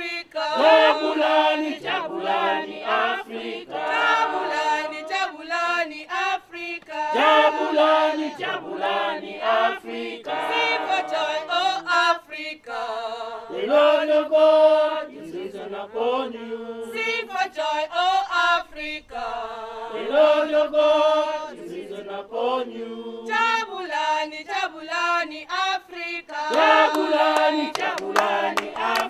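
A group of voices singing together a cappella in harmony, with hand clapping coming in near the end.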